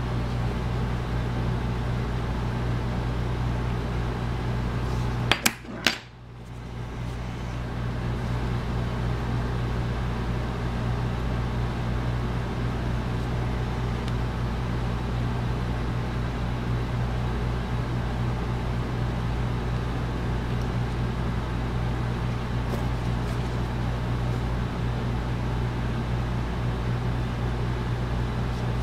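Steady low electrical hum with a fan-like hiss, broken by two sharp clicks about five and a half seconds in.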